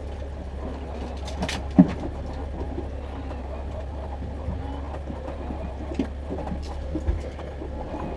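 Boat engine running with a steady low drone, with a few sharp knocks from handling in the boat, the loudest about two seconds in.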